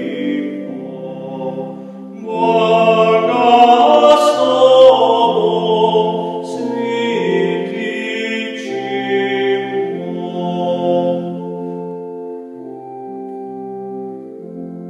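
A hymn sung by a man's voice to sustained, organ-like chords from an electronic keyboard. The singing stops about eleven seconds in, and the keyboard holds its chords after that.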